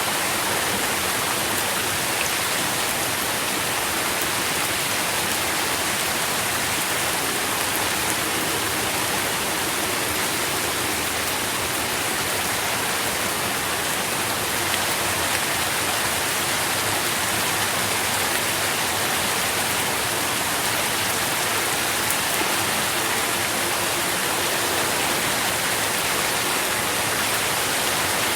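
Steady rain falling, heard as an even hiss with fine patter of drops.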